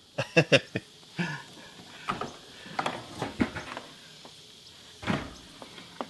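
Handling noise at a wooden window frame: a quick run of knocks and clicks in the first second, then scattered taps and scrapes, with a heavier knock about five seconds in.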